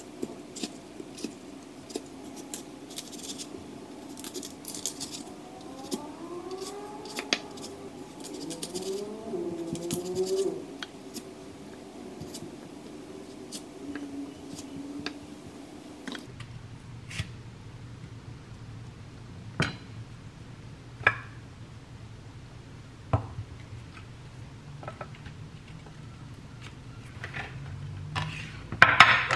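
A chef's knife cutting melon into chunks on a wooden cutting board: irregular soft taps and clicks of the blade meeting the board. Near the end comes a quick run of louder knocks and clatter as the glass dish is handled.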